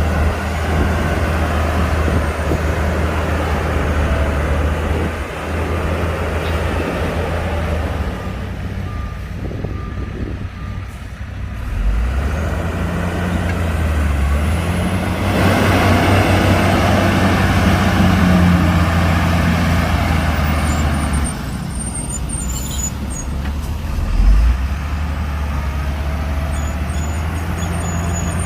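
Heavy diesel earthmoving machinery working: bulldozer and dump-truck engines running hard, the note easing off just before the middle and then swelling louder under load, with a single knock late on.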